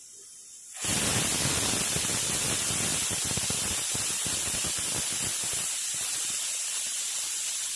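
Stovetop pressure cooker whistling: steam blows out past the weighted valve with a loud, steady hiss that starts suddenly about a second in. This single whistle marks the end of the pressure-cooking of the mutton keema.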